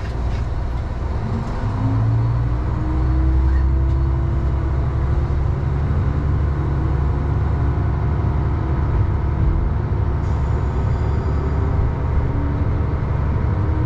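Diesel railcar pulling away from a station: the engine rumbles heavily and revs up, its pitch rising over the first few seconds and again near the end as the train gathers speed.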